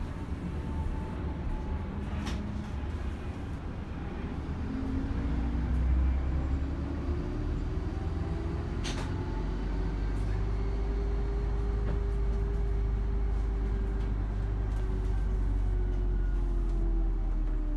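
Bus driving, heard from inside the driver's cab: a steady low rumble with a whine that rises in pitch for several seconds, levels off, and falls again near the end as the bus gathers and loses speed. Two sharp clicks, about two seconds in and about nine seconds in.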